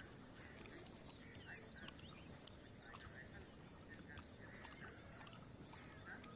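Faint, scattered calls of free-range farm poultry over low background noise.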